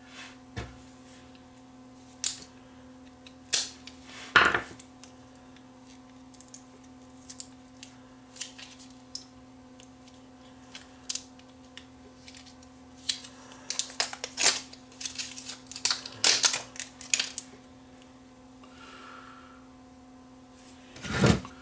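Small scissors snipping and clicking while the plastic shrink-wrap sleeve of a nickel-cadmium battery pack is cut and peeled off: scattered sharp clicks and crinkles, busier in the second half, over a low steady hum.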